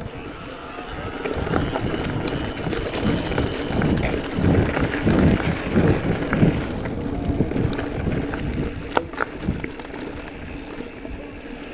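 Giant Trance E+ Pro 2 electric mountain bike riding over a rough dirt trail: steady tyre rumble and rattling over bumps and roots, with wind buffeting the microphone and a couple of sharper knocks about nine seconds in.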